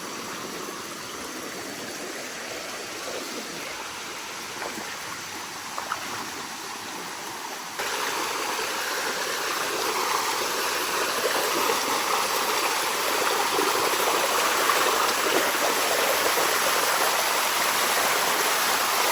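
Waterfall water rushing steadily over cascades, a constant hiss with no distinct splashes; it gets suddenly louder about eight seconds in and stays that way.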